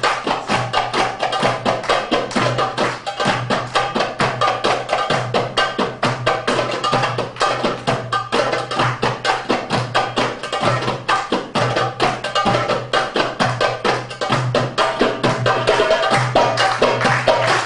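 Darbuka goblet drums played with fast, dense strokes: rapid sharp, ringing hits with deeper thumps recurring beneath them, growing a little louder near the end.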